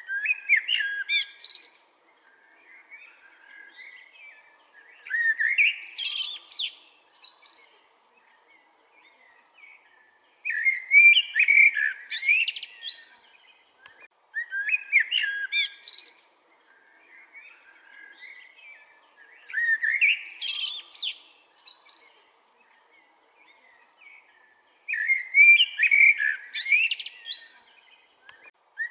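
Songbird singing loud, intricate twittering phrases about two seconds long, one roughly every five seconds, with fainter bird twittering in the gaps between.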